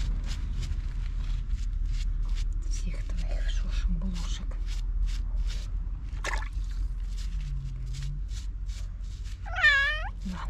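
A kitten meows once near the end, a short call that dips and then rises in pitch, over a steady low hum and a run of short soft noises about two to three a second.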